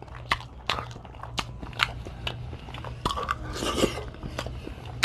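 Dungeness crab shell cracking and crunching as it is eaten. Sharp cracks come about twice a second, with a denser crackling run a little past the three-second mark.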